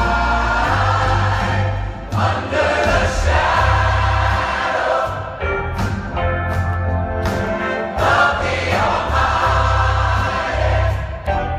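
Church choir singing a gospel song over a deep bass line.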